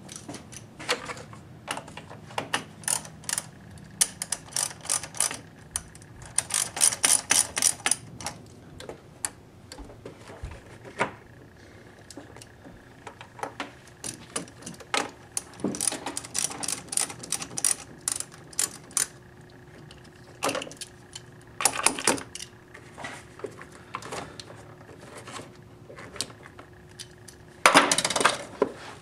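10 mm socket ratchet wrench clicking in quick runs of clicks while the battery hold-down bolts are loosened, with metal clinks and knocks between the runs.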